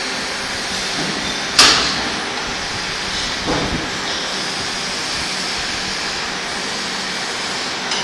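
Steady machine hiss of a workshop, with a sharp metallic clank that rings briefly about a second and a half in and a duller knock around three and a half seconds, as steel parts of a hydraulic cylinder are handled in a bench vise.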